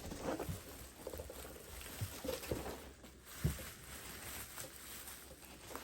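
A toy box and its packaging being handled and opened: light rustling with a few soft knocks.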